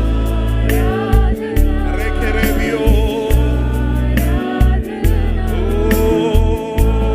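Malayalam Christian worship song played by a band: steady deep bass, regular drum hits, and voices singing wavering lines over them.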